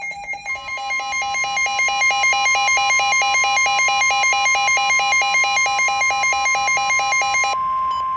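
Emergency alert warning tones: a rapid electronic beeping, about five beeps a second, over a steady high tone. The beeping stops near the end, leaving the steady tone sounding on its own.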